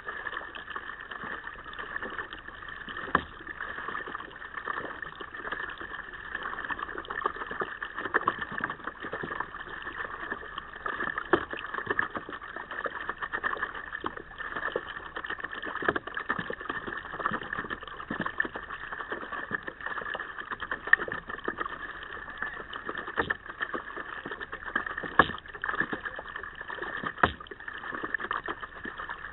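Water lapping and splashing against a kayak as it is paddled, many small irregular splashes and a few louder slaps over a steady hiss.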